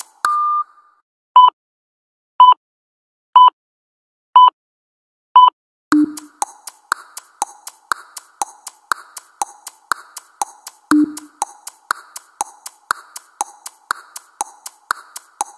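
Electronic workout-timer sounds: one longer beep as the set ends, then five short beeps one second apart counting down the rest, then a steady tick-tock of about two ticks a second, alternating high and low, with a low thump when it starts and another about five seconds later.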